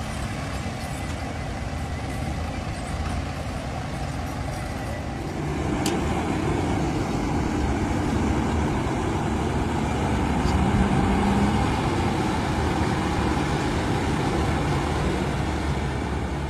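Diesel engines of a New Holland 8070 combine harvester and a Ford 3610 tractor running hard under load as the tractor tows the combine out of soft ground. A steady engine drone that gets louder about five seconds in and stays up as the combine drives forward under its own power.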